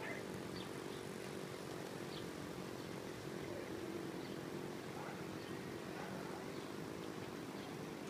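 Steady low mechanical hum that holds one even pitch, with a few faint short sounds over it.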